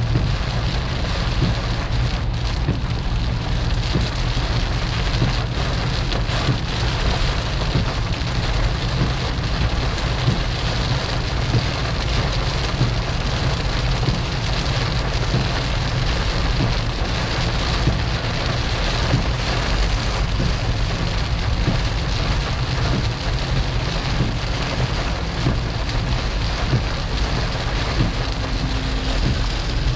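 Heavy rain pelting a car steadily, over a constant low rumble of the car's engine and road noise.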